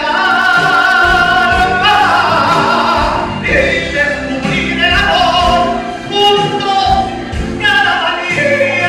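A male singer sings a Latin ballad into a microphone over accompanying music, holding long notes with vibrato.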